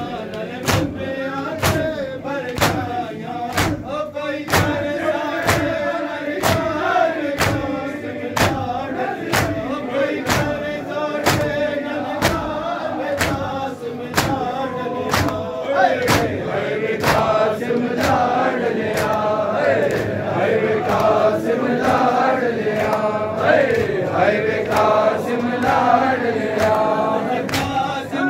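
A crowd of men chanting a noha while beating their chests in unison (matam), the hand-slaps landing about three times every two seconds as a steady beat under the chant.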